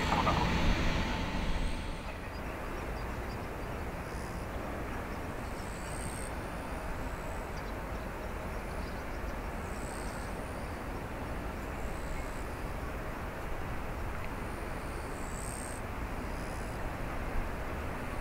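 Steady noise of an Airbus A350-900 jet airliner taxiing at low engine power; a louder stretch in the first couple of seconds, with a brief steady tone, then settles to an even level.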